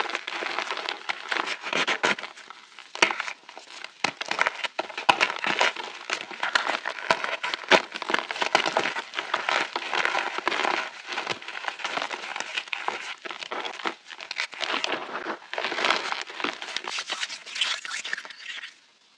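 Reformed chalk chunks being crushed and crumbled, a steady run of dense crunching and crackling with many sharp snaps, which cuts off suddenly near the end.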